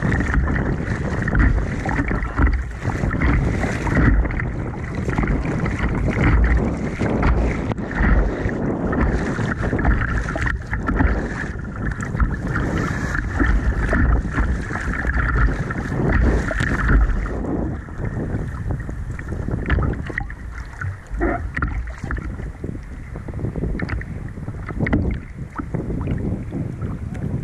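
Sea water splashing and slapping against a plastic sit-on-top kayak as it is paddled through choppy waves, with wind rumbling on the microphone. Busier for the first two-thirds, then calmer.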